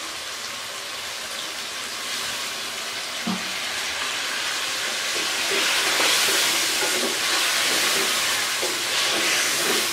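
Chicken pieces in spice masala sizzling in a hot metal pan after a little water is added, then stirred briskly with a wooden spoon. This is the bhuna stage, where the masala is fried down. The sizzle grows louder about halfway through.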